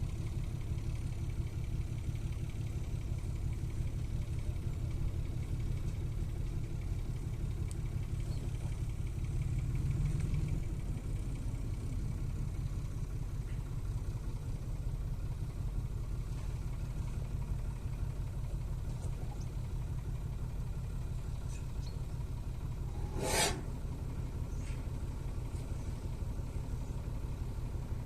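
Steady low rumble of an idling engine, with one brief sharp noise about twenty-three seconds in.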